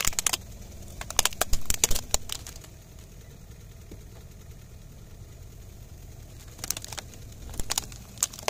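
A car tyre crushing a plastic toy bus, the plastic cracking and snapping in quick clusters of sharp cracks, about a second in and again near the end. Under it the car's engine idles with a steady low rumble.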